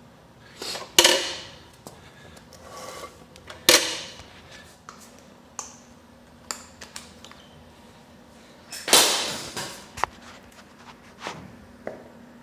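Three loud knocks with rustling, about 1, 4 and 9 seconds in, with lighter clicks and taps between them: handling noise and steps on a concrete floor as a person steps onto a bathroom scale.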